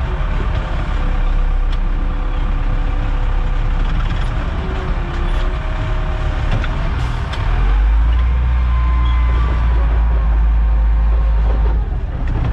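Heavy diesel equipment engine running, its low rumble growing deeper and louder about halfway through and easing off shortly before the end.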